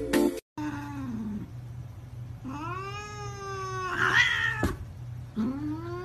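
Piano music cuts off, and a domestic cat yowls: a short falling cry, then a long drawn-out yowl that rises and holds, a brief harsh hiss, and a second long yowl near the end. This is an agitated, defensive cat.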